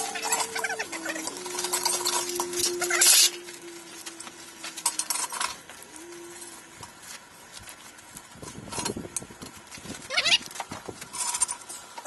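Metal knocking and scraping as a crucible is handled with long steel tongs and set into a tilting pour rig. A steady whine runs under it for the first half, stepping a little in pitch in the first second and stopping about five and a half seconds in.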